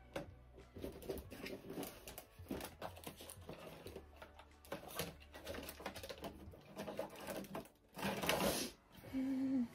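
Handling and rummaging noises: a string of light clicks and knocks, with a louder rustling scrape about eight seconds in and a brief low hum just before the end.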